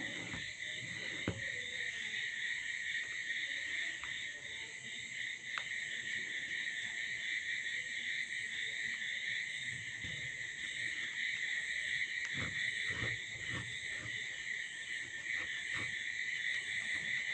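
Soft taps and rustles of paper being folded and creased by hand, over a steady high-pitched drone in the background.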